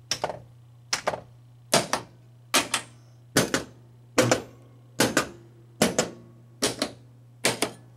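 Solenoid coils of a 1981 Bally Medusa pinball machine firing one after another in the game's test mode: a sharp double clack roughly every 0.8 seconds, over a steady low hum. Every coil firing in turn, the sign that the coils and their drivers are working.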